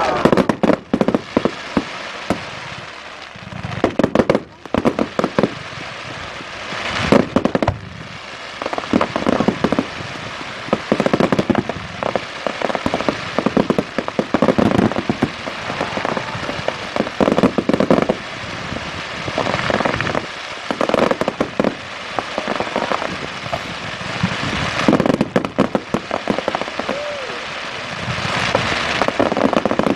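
Fireworks display: aerial shells bursting in a steady run of loud bangs, some clusters breaking into rapid strings of pops.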